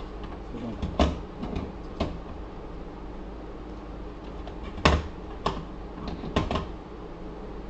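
Handheld digital multimeter and its test probes being handled and set down on the computer: about six sharp clicks and knocks, the loudest about five seconds in.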